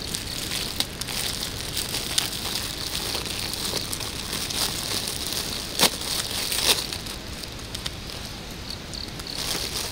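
Crinkling of a plastic bag of mandarin oranges being handled, a run of small irregular crackles with a couple of sharper ones about six seconds in.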